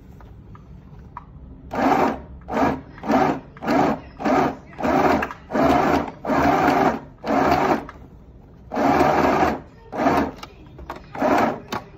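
Small electric sewing machine stitching in short stop-start runs, about a dozen of them, starting about two seconds in, with a longer pause near the end.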